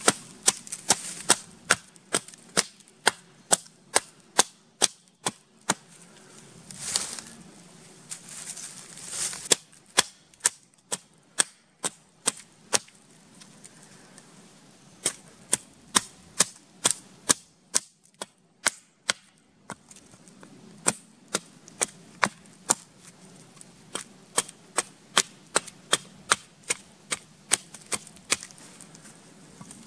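A small hatchet chopping into a wooden stake held against a stump: sharp, crisp chops about two a second, with a few short pauses between runs of strokes.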